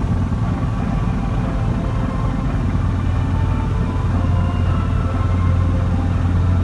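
Steady low drone of a harbour sightseeing boat's engine, heard from on board.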